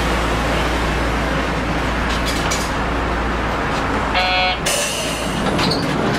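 Manyosen tram standing with a steady low hum and rumble. About four seconds in a brief tone sounds, followed at once by a loud hiss lasting about a second.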